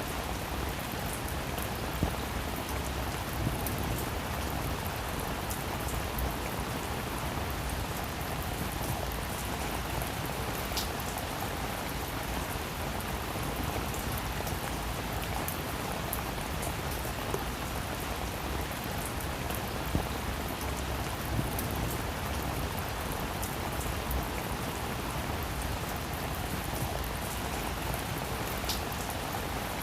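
Steady rain falling on a roof: a dense, even hiss with scattered sharper drop ticks.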